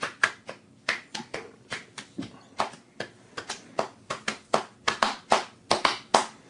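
A run of sharp, uneven clicks or taps, about three to four a second.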